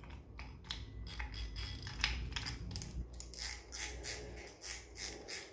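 Light clicking and rattling from a Daiwa Tournament 5000 spinning reel as fingers work its spool: irregular small clicks, a few a second, growing denser after about two seconds.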